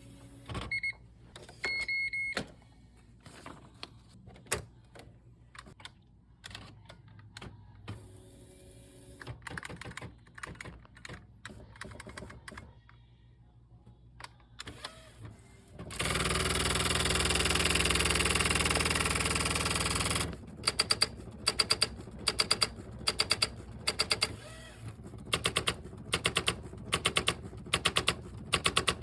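IBM Wheelwriter 15 electronic typewriter: two short electronic beeps, then scattered key and mechanism clicks. About halfway through comes a few seconds of loud steady whirring noise, followed by rapid bursts of daisy-wheel print strikes, a word at a time.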